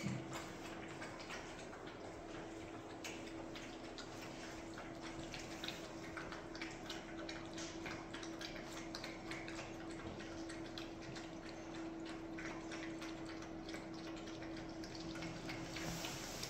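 Bucovina Shepherd puppies eating soaked food from a plastic tray: a continuous patter of irregular wet smacking and lapping clicks. A faint steady hum runs underneath.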